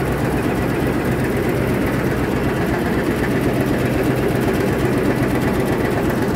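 Tea-processing machinery running in the factory: a loud, steady mechanical hum with a low drone underneath.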